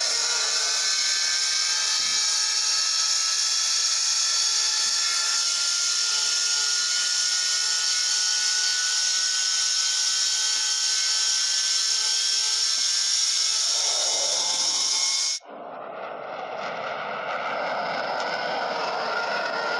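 Sci-fi sound effect of an Imperial probe droid falling through the atmosphere: a steady rushing hiss with a faint tone slowly rising in pitch. It cuts off abruptly about fifteen seconds in and is followed by a duller rushing noise that swells back up.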